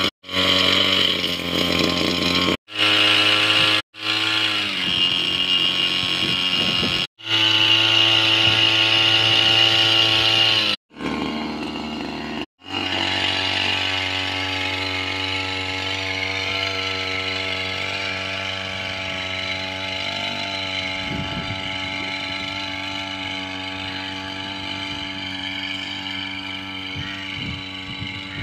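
Small two-stroke engine of a backpack power sprayer (a G26LS) running at high revs, broken by several short gaps in the first half, then running steadily while it blows the spray mist.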